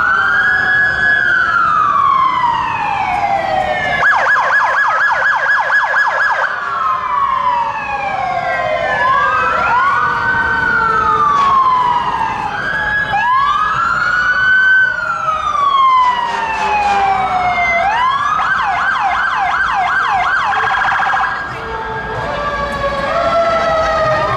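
Several police car sirens sounding together, overlapping slow rising-and-falling wails. Twice, about four and about eighteen seconds in, they switch to a fast yelp.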